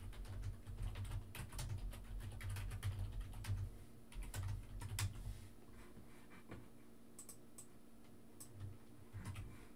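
Typing on a computer keyboard: a quick, busy run of keystrokes for about five seconds, then only a few scattered key presses.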